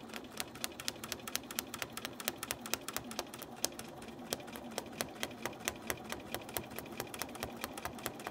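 Computerised domestic sewing machine stitching steadily with small stitches as a quilt is guided under the needle, each needle stroke giving a sharp tick, several a second, over the motor's steady hum.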